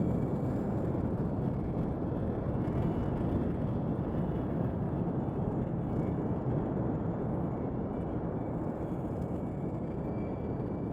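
Designed sci-fi alien-planet ambience: a steady low rumbling wash with a faint thin high tone above it.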